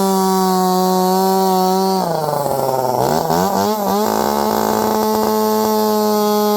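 Chainsaw running at full throttle. About two seconds in, its engine note drops and wavers for roughly two seconds as the chain bogs down cutting into a tyre on an aluminium rim, then climbs back to the steady high note.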